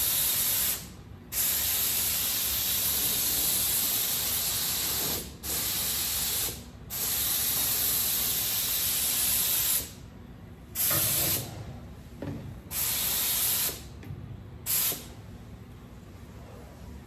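Aero Pro spray gun laying down polyester primer with compressed air at about 30 PSI: a loud, steady hiss in long passes, with the trigger let off briefly several times. Near the end the passes grow short, and the last couple of seconds are quiet.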